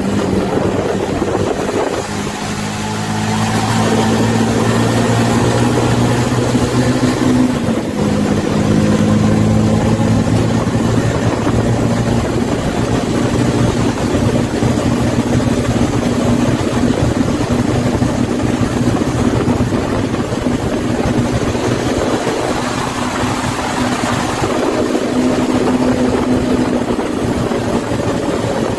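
Bus engine running under way: a steady hum over road noise that climbs and then drops back with a gear change about seven seconds in, then holds an even note.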